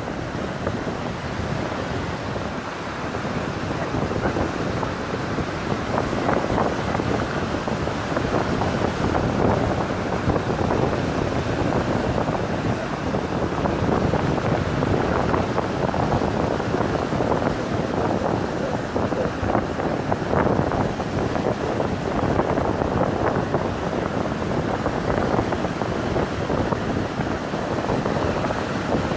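Surf breaking and washing up a pebble beach, mixed with steady wind blowing on the microphone.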